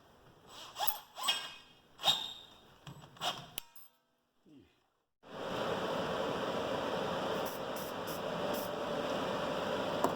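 About five sharp metal clanks and clinks, each with a short ring. After a brief break, a machine starts running with a steady hum and a faint held tone.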